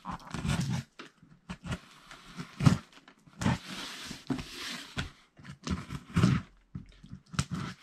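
Cardboard shipping box being handled and opened: scattered knocks and thumps, with a longer rasping, scraping sound about three and a half seconds in.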